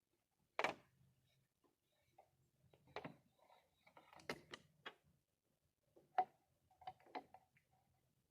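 Faint, scattered clicks and knocks, about seven at uneven spacing, from hand tools working on the light bar's roof-mounting brackets and bolts.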